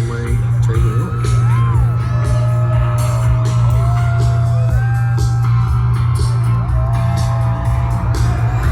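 Loud music with a heavy, steady bass, a regular beat and a singing voice.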